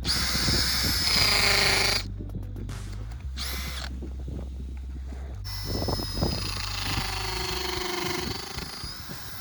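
Power drill running in three bursts: about two seconds, then under a second, then about three and a half seconds, its whine dipping and rising again near the end. Background music with a steady bass plays underneath.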